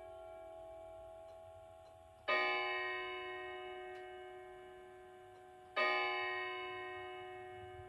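Kienzle grandmother clock movement striking the hour: single ringing strokes about three and a half seconds apart, twice in this stretch, each ringing out with several tones and fading slowly. The pendulum ticks faintly between strokes.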